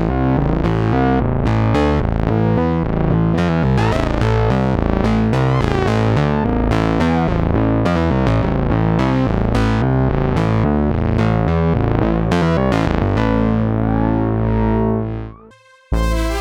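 Moog Muse analog polyphonic synthesizer playing a fast, repeating sequenced pattern of bass-heavy notes. The pattern gives way to a held low note that fades out, and after a short gap a new sound starts just before the end.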